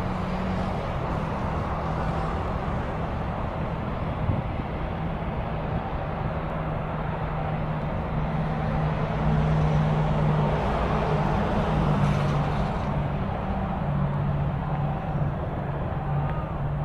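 A steady, low engine hum over outdoor background noise, swelling louder for a few seconds in the middle.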